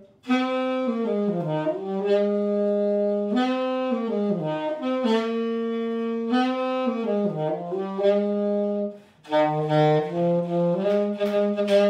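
A solo instrument playing a practised melody one note at a time, in phrases with short breaks between them, one near the start and one about nine seconds in.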